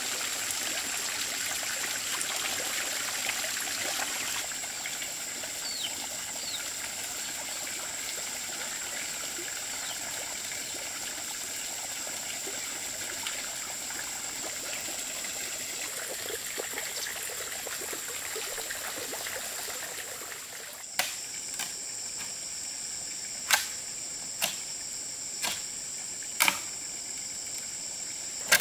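Water trickling steadily under a constant high-pitched whine. After about 20 s this gives way to a run of about six sharp wooden knocks on bamboo, spaced about a second apart.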